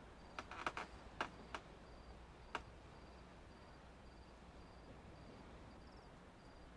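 Faint crickets chirping at night, a short high chirp about twice a second. A handful of sharp clicks and knocks fall in the first three seconds.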